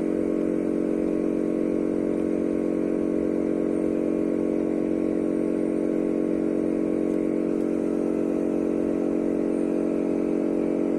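A steady, unchanging buzzing drone held at one pitch.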